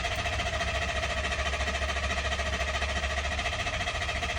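2020 Ford F-150's 3.5-litre EcoBoost twin-turbo V6 cranking on its starter without firing, a steady rapid rhythmic churn that cuts off sharply at the end. With the accelerator floored, the crank-no-start feature withholds fuel so the engine turns over only to prime the oil after an oil change.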